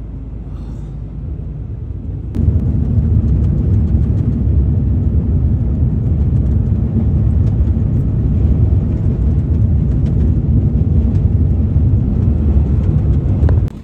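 Truck driving on a highway: a steady low rumble of engine and road noise, heard from the cab. It steps up louder about two seconds in.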